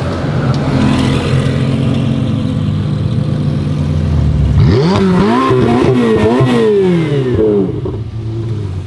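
Supercar engine running at low revs, then blipped hard several times in quick succession about halfway through, the pitch jumping up and falling back each time, before dropping back to a low steady idle near the end.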